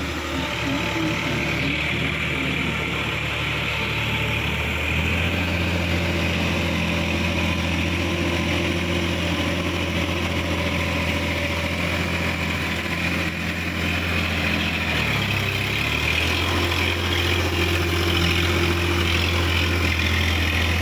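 TAFE 5450 DI tractor's diesel engine running steadily under load while its rear-mounted rotary tiller churns flooded paddy mud. The engine note gets louder about five seconds in, dips briefly about three-quarters of the way through, then picks up again.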